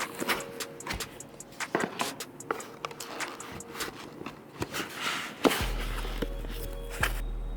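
Irregular small clicks and taps, like PC hardware being handled and fitted. About five and a half seconds in, background music with a deep steady bass note comes in.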